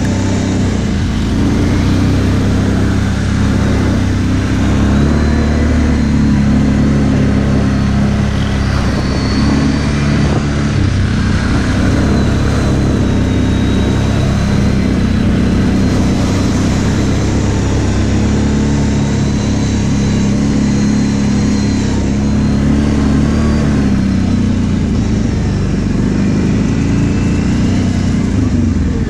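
Kawasaki KVF 750 Brute Force ATV's V-twin engine running under way, its revs rising and falling with the throttle, with a dip and rise in revs a few seconds before the end.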